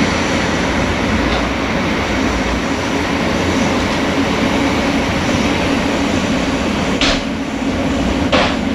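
Passenger train running with a steady rumble, with two short hissing bursts near the end.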